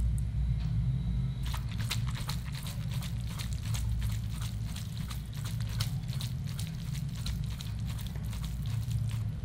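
Oiled boiled noodles being tossed by hand in a stainless steel colander: a quick, irregular run of small sticky clicks that starts about a second and a half in, over a steady low hum.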